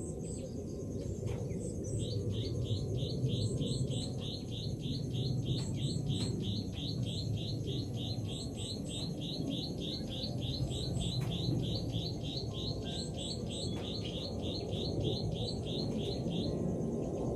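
A bird repeats a short high chirp evenly, about four or five times a second, with a few higher chirps scattered over it. A steady low rushing noise, most likely rain, runs under it. The chirping pauses near the end and starts again.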